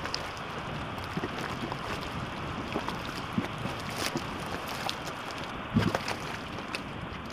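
Outdoor wind rushing steadily, partly buffeting the microphone, with scattered light ticks and a louder low thump about six seconds in.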